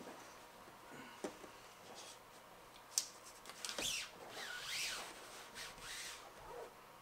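Faint rubbing of hands pressing and smoothing the edge of a flexible solar panel down onto its mounting tape. There is a sharp click about three seconds in, followed by a few seconds of squeaky sliding and rubbing.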